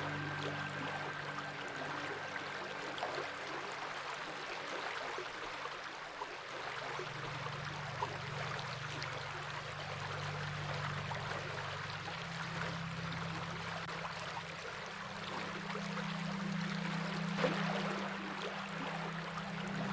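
Flowing stream water, a steady rushing and trickling with small splashes, over a soft low musical drone that changes pitch a few times.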